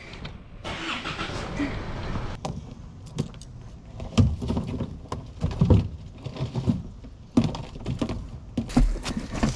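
Torn-out plywood and ceiling rubbish being handled and dumped: irregular knocks, thumps and rattles, with a rustling scrape over the first couple of seconds.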